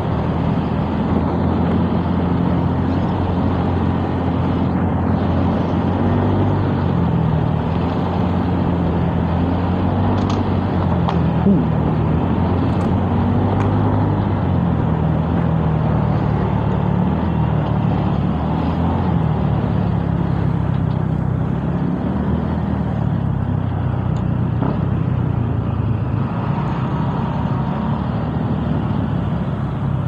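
Motorcycle engine running at road speed, with wind and road noise, heard from the riding bike itself; its hum drifts up and down in pitch as the speed changes.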